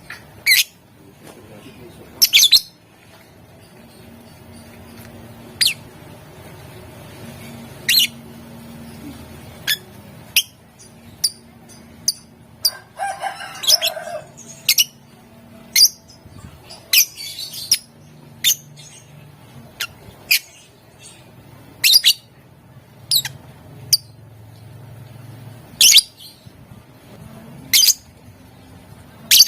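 Lovebird calling with short, high-pitched single chirps about every one to two seconds, and a brief rapid chattering burst about 13 seconds in.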